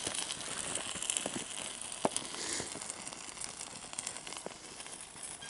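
Burning trash fire crackling, with a steady hiss and scattered small pops.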